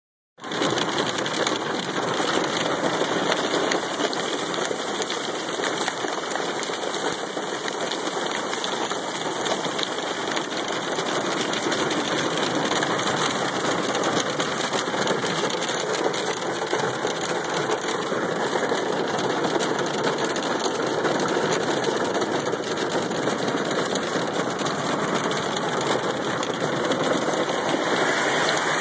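Hail up to half an inch drumming on a vehicle's roof and windows, heard from inside the cabin: a dense, steady clatter of countless small impacts.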